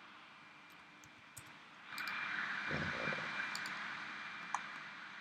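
A few scattered computer mouse clicks over a steady background hiss that grows louder about two seconds in.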